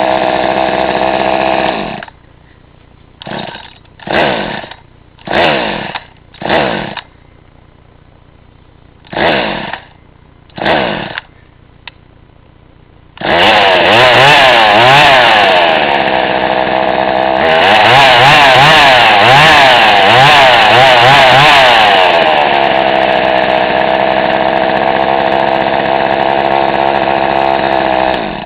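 Craftsman Poulan 2300 CV counter-vibe chainsaw's two-stroke engine running at high speed, then dropping to idle. It is blipped six times in quick throttle bursts, then held at full throttle for about fifteen seconds, its pitch wavering rapidly for much of that run.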